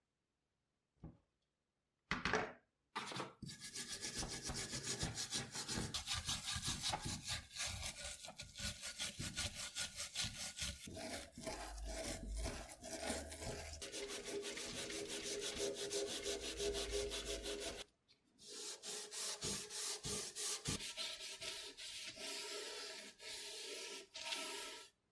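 A small brass wire brush scrubs rust from the steel hilt of a bayonet in rapid back-and-forth strokes. After a brief pause, an abrasive pad is rubbed briskly along the blade.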